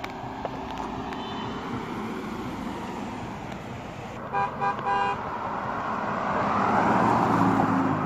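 Passing cars driving by, with a car horn giving a quick run of short honks about four seconds in; a car's tyre and engine noise swells louder near the end as it passes close.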